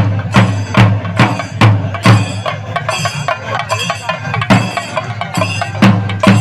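Kerala temple percussion: drums, likely chenda, and cymbals beating a steady rhythm of about two and a half strong strokes a second.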